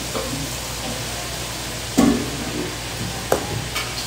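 Lobster tails deep-frying in a pot of hot oil, a steady sizzle, with a sharp metal clank about two seconds in and a couple of lighter clicks near the end.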